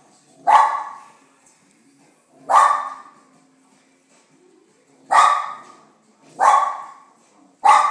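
West Highland white terrier barking at the television, five single loud barks spaced a second or two apart.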